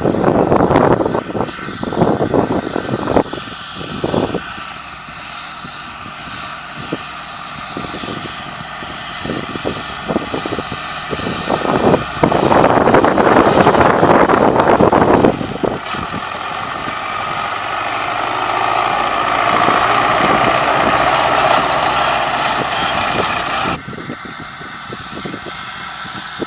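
MTZ tractor's diesel engine running while mowing with a tractor-drawn mower, with loud rushing surges in the noise, the biggest about twelve to fifteen seconds in, and a change near the end where part of the sound cuts off suddenly.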